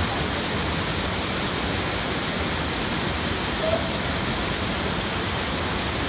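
Waterfall pouring into a rock-walled plunge pool: a steady, even rushing of falling water.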